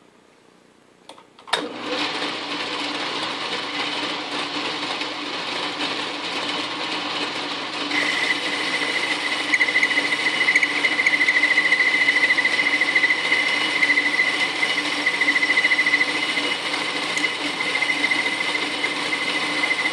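Atlas metal lathe switched on with a sharp click about a second and a half in, then running steadily with its chuck spinning aluminum bar stock. About eight seconds in, a steady high whine joins and the sound grows louder.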